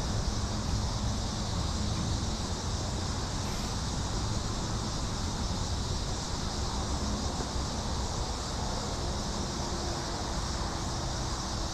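Steady outdoor noise: wind rumbling on the microphone over the hiss of a small creek's running water, with a faint low hum.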